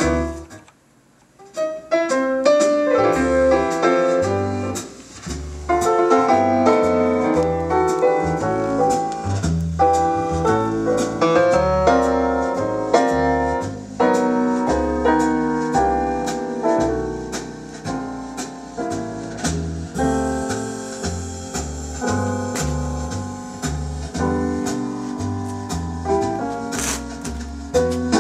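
Recorded piano music with a bass line, played from a vinyl record through the phono stage of an Audio Research SP6 preamplifier. The music drops out briefly about a second in, then carries on.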